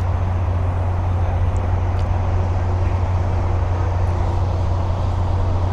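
Steady low rumble of vehicle noise with a constant deep hum.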